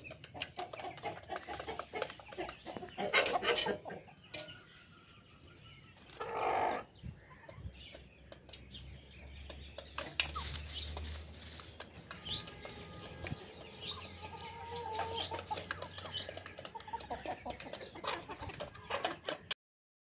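A flock of hens and roosters clucking, with many short sharp clicks scattered through. One louder drawn-out call comes about six seconds in. The sound cuts off suddenly near the end.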